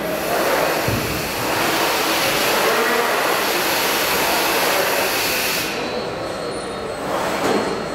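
A linear transfer machine running: a steady, dense mechanical noise with a strong hiss. The hiss drops away about six seconds in and returns near the end.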